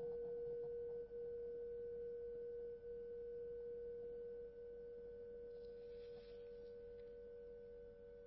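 A single sustained, pure ringing tone, slowly fading, with a fainter higher overtone above it.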